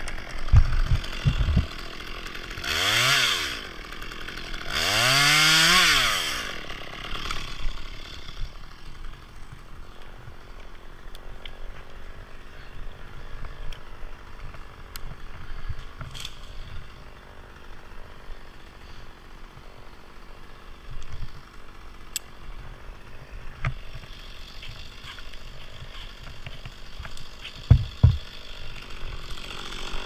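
Chainsaw revved twice in quick succession, its pitch rising then falling each time, the second rev longer, then left running at idle. A few knocks and clicks come over the idle, the loudest near the start and near the end.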